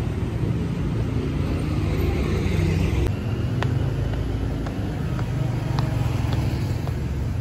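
Steady low rumble of outdoor traffic noise. In the second half come a few light taps, footsteps on stone steps.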